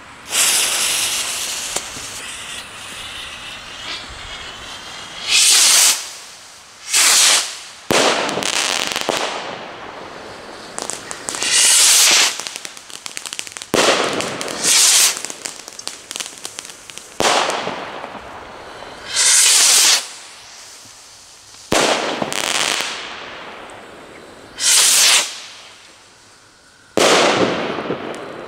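Firework rockets launching one after another, fired in sequence by an automatic rocket stand's linked fuse. Each launch is a loud hissing whoosh of about a second, coming every two to three seconds, with short pops and crackles in between.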